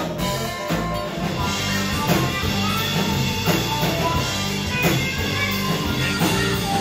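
A live rock band playing: electric guitars, bass guitar and drum kit, with a steady beat.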